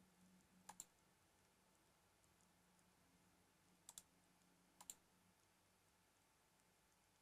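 Three computer mouse clicks over near silence: the first about a second in, the others near four and five seconds. Each is a quick double tick, the button pressed and then released.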